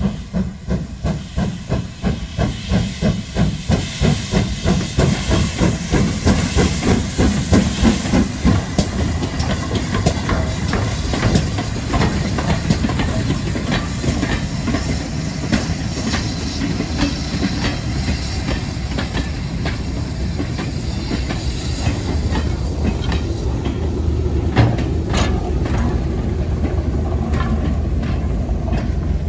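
GWR Castle-class steam locomotive pulling away, its exhaust beating about two to three times a second. A slow train then passes, its wheels clicking over rail joints. Near the end comes the steady drone of a BR Class 08 diesel shunter's engine.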